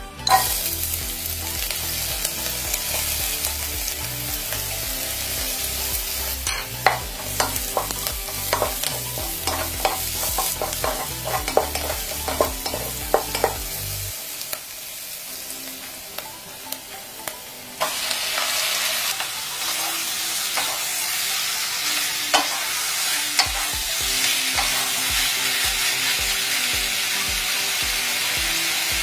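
Food sizzling as it fries in a pan while a utensil stirs it, with a run of sharp clicks and scrapes against the pan through the first half. The sizzle gets louder about two-thirds of the way in.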